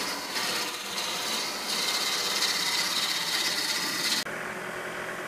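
A turning tool cutting an old cedar fence post spinning on a wood lathe: a steady scraping hiss of the tool on the wood, which stops suddenly about four seconds in.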